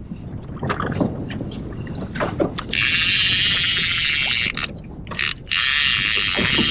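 Trolling reel's drag buzzing as a hooked landlocked salmon pulls line off, in two long runs of a few seconds each, the second starting about five and a half seconds in. Short clicks and knocks from the reel and rod come between the runs.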